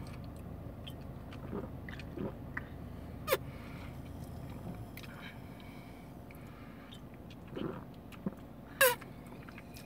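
Soft lip smacks and mouth clicks of someone tasting a fizzy soda, then a louder sip from a glass bottle near the end, over a low steady hum.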